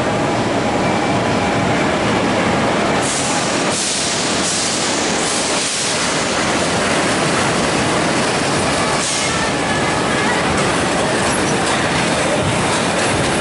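Steady loud rumble of a rail vehicle, such as an amusement-park ride train, running along its track with some wheel squeal. Several short bursts of high hiss come about three to five seconds in and again past the middle.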